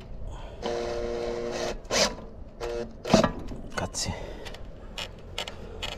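Cordless drill-driver running for about a second, driving a screw to fix a roof ridge tile, then a short second burst. A few sharp clicks and knocks follow.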